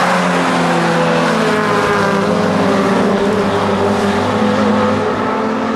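A pack of race cars going by one after another, with several engine notes overlapping. Their pitch falls slightly as they pass.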